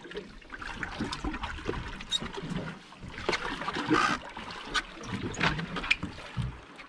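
Seawater sloshing and splashing against a boat's hull, with scattered clicks and knocks and a louder rush of water about three seconds in.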